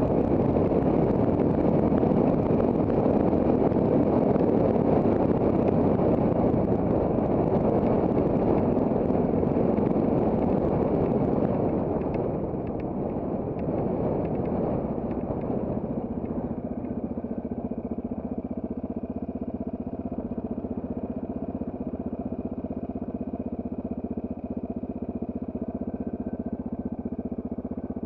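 Trail motorcycle engine running under way with a broad rush of noise, easing off about twelve seconds in and settling to a steady, even running note from about sixteen seconds.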